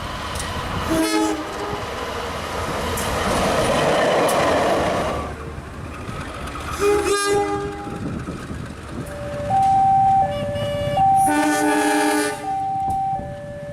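CC 201 (GE U18C) diesel locomotive chord horn giving several short blasts about a second in, around seven seconds in and near the end, with a passing train's rolling noise between them. From about two-thirds of the way through, a two-tone warning alternates steadily between a higher and a lower pitch under the last horn blast.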